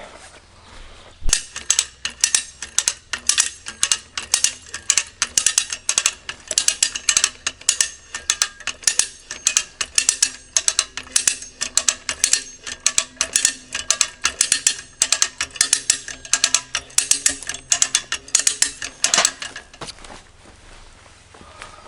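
Ratchet strap being cranked, a long run of rapid ratchet clicks in repeated strokes that stops a couple of seconds before the end, as the strap anchored to a tree is tightened against the weight of a heavy safe.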